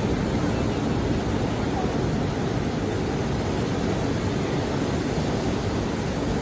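Big surf breaking on a beach, a steady low rumbling wash with wind buffeting the microphone.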